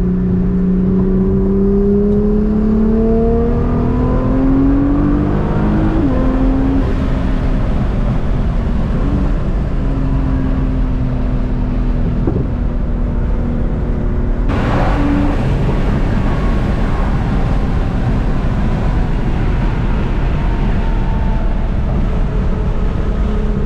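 In-cabin sound of a tuned Nissan GT-R's twin-turbo V6 pulling on the highway: the engine note climbs steadily for several seconds, drops suddenly at an upshift, then runs on with a brief rush of noise about two-thirds of the way through, over constant road and wind roar.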